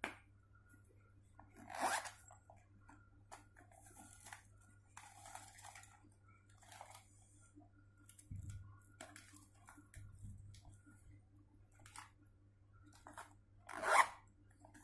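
Clear plastic zippered pouch being handled and rummaged through: scattered crinkling and rustling, loudest about two seconds in and again near the end.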